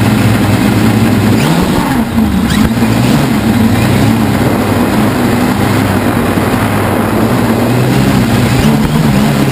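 Helimax Form 500 quadcopter's electric motors and propellers droning steadily in flight, picked up close by the camera on board. The pitch of the hum dips and recovers briefly about two seconds in as the motors change speed.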